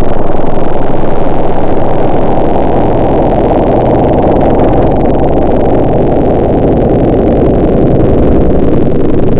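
Loud, steady motor noise from tree-cutting machinery, mostly low-pitched, easing off slightly in the middle.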